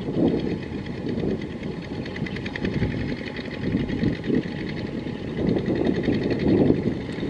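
Walk-behind tractor's single-cylinder Kubota ZT155 diesel engine running steadily while it ploughs, with a fast, even knocking beat.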